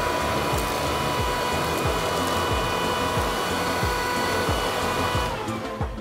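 Bosch cordless handheld vacuum running with a steady whine and rush of air, switched off about five seconds in, its pitch falling as the motor spins down. Background music with a steady beat plays underneath.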